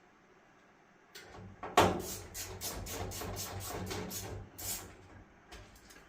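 Samsung dryer drum turned by hand on its new support rollers and belt: a steady low rumble with about four clicks a second, fading out. It is the check that drum and motor turn together through the new belt.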